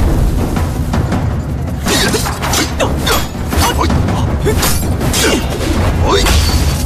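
Sound effects of a weapon fight: a run of sharp clashes and hits with swishing swings, over a steady low rumbling score.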